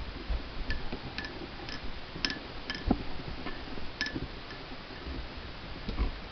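Light, sharp ticks at about two a second, with one dull knock about three seconds in.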